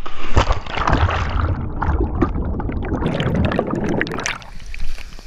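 A person plunging feet-first into a deep natural pool with an action camera in hand: a loud splash on entry, then the muffled rush and crackle of bubbles around the submerged camera, easing off about four seconds in.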